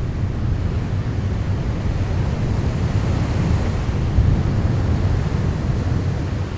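Lake Michigan surf washing on the beach, with wind rumbling on the microphone.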